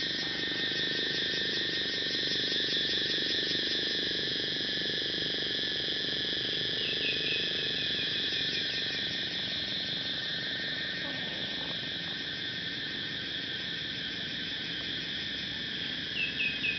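Steady evening chorus of insects, a shrill chirring in several high pitches. A quick run of short chirps cuts through it about seven seconds in, and again near the end.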